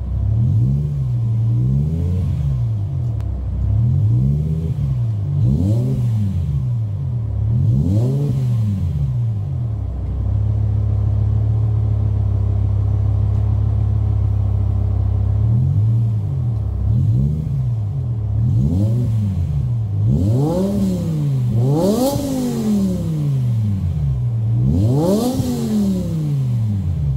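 BMW M6's S85 5.0-litre V10 being free-revved at a standstill through its quad-pipe exhaust: quick throttle blips about every second and a half, each pitch rising and falling back, then several seconds of steady idle in the middle, then more blips, with the last two revved the highest.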